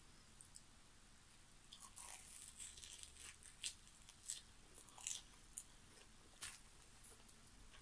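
Faint crunching as the fried batter crust of a Korean mozzarella corn dog is bitten and chewed, starting about two seconds in, with a few sharper crunches among it.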